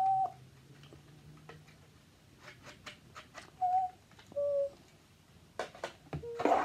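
Light clicks and taps of a plastic LED video light panel being handled, with a burst of louder clicking near the end. Three short, steady high notes sound, one at the start and two a few seconds later.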